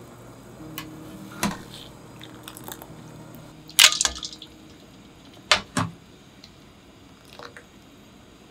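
Pieces of blanched cod roe being dropped with a metal slotted ladle into a bowl of ice water: a series of short wet splashes and plops. The loudest comes about four seconds in, with two more around five and a half seconds.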